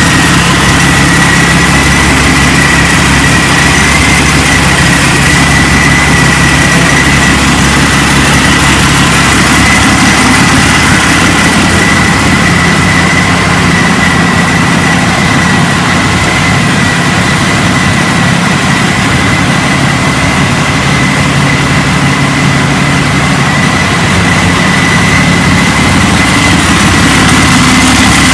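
Supercharged 750 cubic inch Ranger V-12 aircraft engine idling steadily through open individual header pipes, with a steady high whine over the engine.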